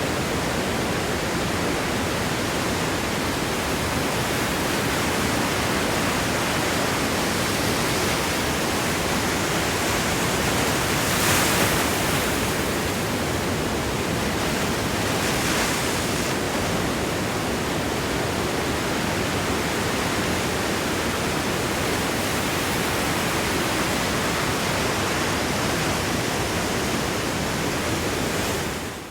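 Sea waves washing over rocks on a beach: a steady hiss of churning surf, with a wave breaking louder about eleven seconds in and a smaller one around fifteen seconds. The sound fades out at the very end.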